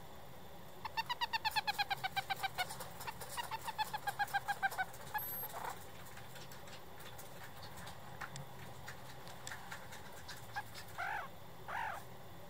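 Week-old meerkat pups squeaking: a quick run of high peeps, about eight a second for some four seconds, slowly sinking in pitch, then two single rising-and-falling squeaks near the end.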